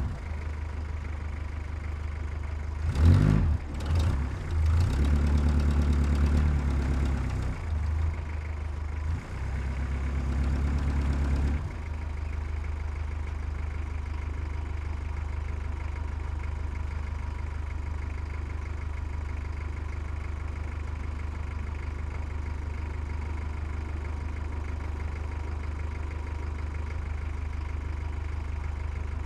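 Heavy diesel engine running. It is raised in load a few times in the first twelve seconds, then drops back suddenly to a steady idle.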